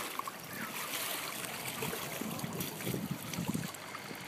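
Pool water sloshing and splashing around an inflatable water-walking ball as it rolls with a person tumbling inside.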